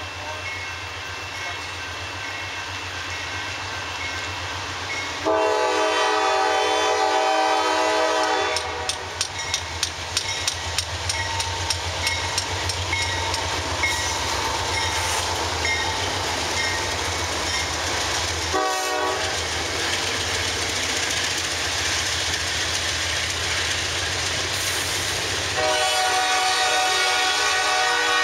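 Diesel locomotive horn sounding a long blast about five seconds in, a short blast a little past halfway, and another long blast near the end, over the steady low rumble of a train. A run of rapid clicking follows the first blast.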